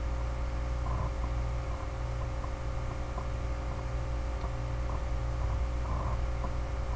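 Steady low hum and faint hiss of background room and microphone noise, with a few faint soft ticks.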